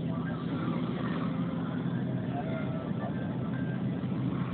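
Motorcycle engine running at a steady speed, a low, even rumble that neither rises nor falls.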